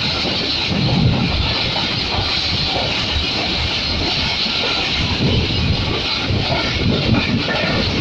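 Passenger train coach running at speed, heard from an open window: a steady rushing noise with irregular low rumbling and knocking from the wheels and carriage.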